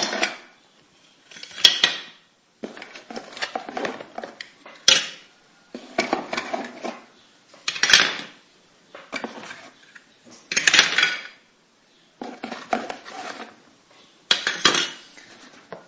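Small plastic toy building pieces clattering and clicking against each other as they are handled and set down, in short bursts a second or two apart.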